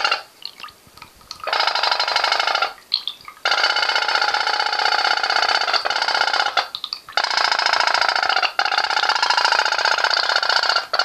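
Toy pom-pom (pop-pop) steam boat engine, a flame-heated boiler with two water tubes, running with a rapid high-pitched buzz. It cuts out and starts again several times: a short burst at the start, again about a second and a half in, then from about three and a half seconds on with brief breaks.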